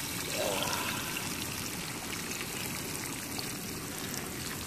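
Eggs and whitebait sizzling in a frying pan over a campfire: a steady hiss with faint scattered ticks.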